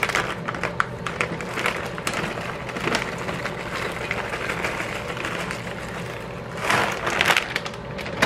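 Frozen mixed vegetables (carrots, peas, corn and green beans) shaken from a plastic bag and scattered by hand onto a casserole of chicken and potatoes. They make a dense patter of small clicks, heavier for a moment about seven seconds in.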